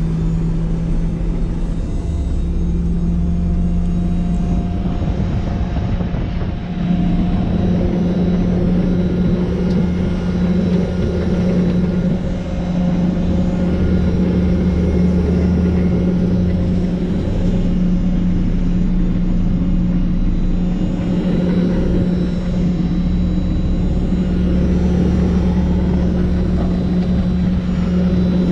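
Nitehawk street sweeper truck on an Isuzu cabover chassis running while it sweeps. A steady, loud engine and machinery drone with a strong low hum over a rumble; the hum steps up in pitch about seven seconds in.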